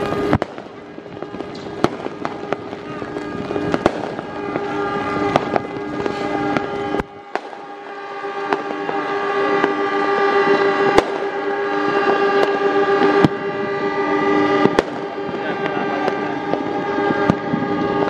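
Diesel locomotive horns held on in a long chord of several steady tones, growing louder after about eight seconds. Fireworks pop and crackle sharply throughout.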